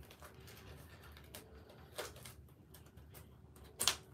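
A few brief, sharp clicks over a faint steady hum: three in all, the loudest just before the end.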